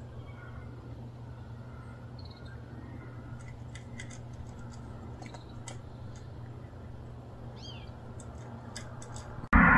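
Stray cat eating from a bowl, crunching its food with faint, irregular crisp clicks over a steady low background hum. A short bird chirp comes near the end, and just before the end a much louder, even noise cuts in suddenly.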